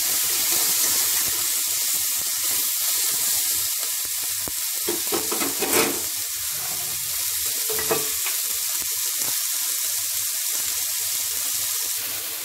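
Onion, tomato and green peas sizzling steadily in hot oil in a kadai as the tomato is sautéed down, with a spatula stirring through them and knocking against the pan a few times, mostly around the middle.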